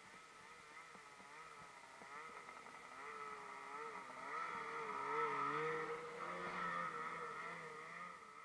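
Snowmobile engine running in deep powder, its pitch wavering up and down as the throttle is worked. It grows louder toward the middle and stays fairly loud.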